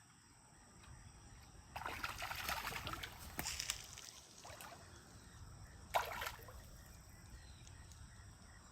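Shallow water splashing and sloshing in a few bursts: a spell of about a second starting about two seconds in, a shorter one after it, and a single sharp splash about six seconds in.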